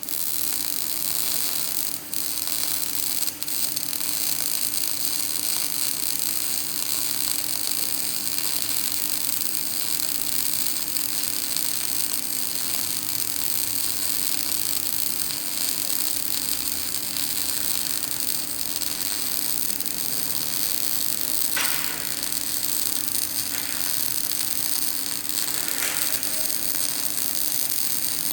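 Electric welding arc running a bead: a steady hissing crackle with a steady hum underneath, briefly dipping twice near the start and then going on unbroken.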